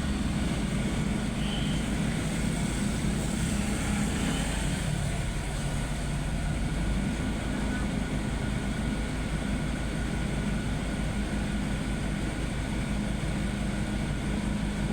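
Heavy diesel engine of an excavator or truck running steadily with a low drone.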